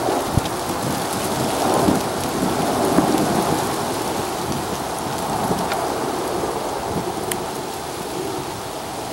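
Boeing CH-47 Chinook tandem-rotor helicopters flying by: a steady, deep rotor and engine noise that swells and eases slightly.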